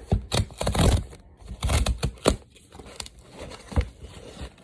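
Packaging being torn open and crinkled by hand: bursts of tearing and rustling in the first half, then a few sharp crackles near the end.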